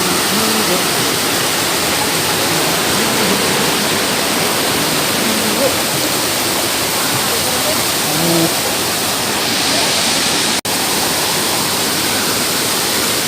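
Waterfall: a loud, steady rush of falling water, cutting out for an instant about ten and a half seconds in.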